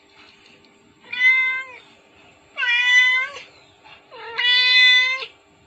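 Cat meowing: three long, loud meows about a second apart, each with a slight bend in pitch at the end.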